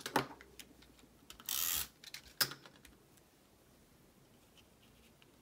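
Hands handling small die-cut metallic-paper pieces on a craft mat: a few light clicks and taps, with a short scraping rustle about one and a half seconds in. After about three seconds only faint ticks are left.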